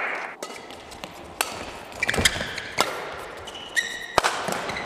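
Badminton rally: rackets striking the shuttlecock in a string of sharp hits about a second apart, with court shoes squeaking on the floor in short bursts.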